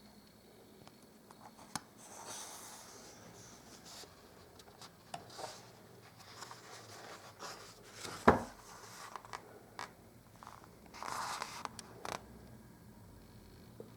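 Quiet, irregular rustling and scraping in a small room, with a few small clicks and one sharp knock about eight seconds in.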